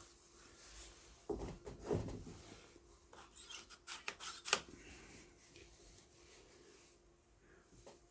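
Plastic parts of a car phone holder rubbing and clicking as they are handled and fitted together. A run of sharp clicks comes from about three to four and a half seconds in.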